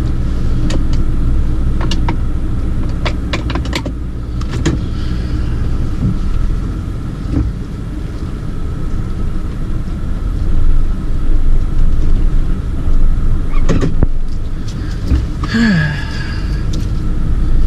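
Steady low road and engine rumble inside a moving car's cabin, with a few scattered clicks and knocks.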